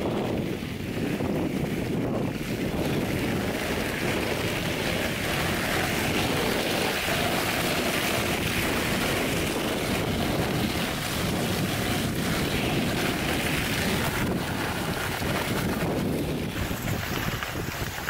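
Dogsled runners hissing over packed snow as the husky team pulls, with wind buffeting the microphone: a steady rushing noise that drops a little and changes near the end.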